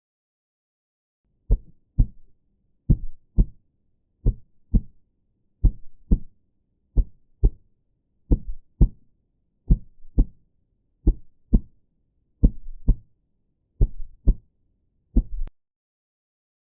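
Heartbeat sound effect: low double thumps, lub-dub, about ten pairs at one pair every second and a half or so, starting about a second and a half in and stopping near the end.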